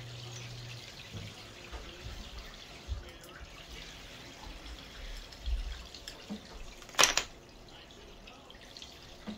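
Soft handling sounds from carving and pressing a block of clay on a banding wheel: faint scraping and a few small knocks, with one sharp knock about seven seconds in.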